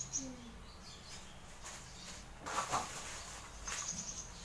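Dry red rice flakes being stirred with a spatula in a hot pan while roasting until crisp: a brief scrape and rustle of the flakes about two and a half seconds in, over a low steady hum. A few short high chirps sound near the start and again near the end.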